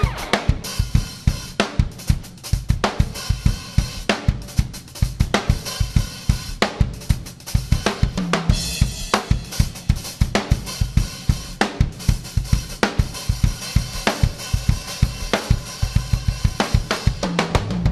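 A drum kit playing a steady beat on its own or nearly so: kick drum, snare, hi-hat and cymbals in a regular run of hits.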